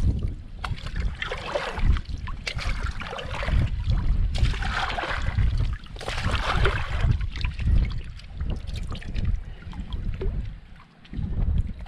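A soft plastic water bottle being dipped and filled in a shallow mountain stream: water gurgling and sloshing into it and splashing around the hand in uneven surges.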